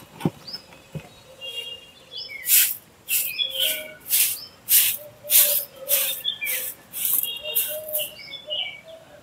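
Fallen leaves being swept with a broom, a run of short hissy swishes at one to two a second starting about two seconds in. Birds chirp throughout.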